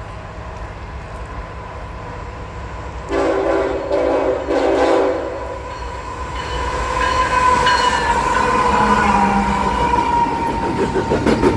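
Freight train's locomotive air horn sounding a multi-note chord in two blasts about three seconds in. The train then rolls by with a steady rumble and a steady high tone, and near the end the wheels click in quick succession over the rail joints.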